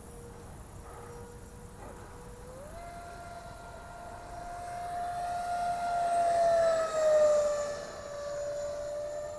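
Horizon Hobby F-15E RC jet's 64 mm twelve-blade electric ducted fan whining in flight. The whine steps up in pitch about two and a half seconds in and grows louder. About seven seconds in it drops in pitch as the jet passes close by.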